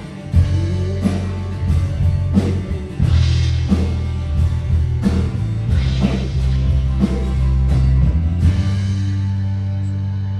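Rock worship song with drums and an electric bass guitar playing along, bass notes moving under regular drum hits. About eight seconds in, the band lands on a final chord that is held and rings out.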